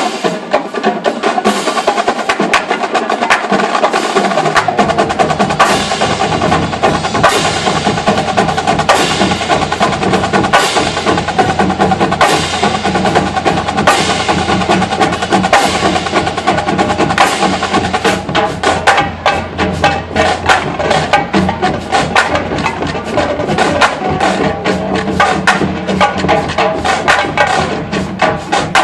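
Marching band percussion section playing a fast, dense drum feature arranged from a progressive-metal tune; a low, heavy layer joins about four to five seconds in.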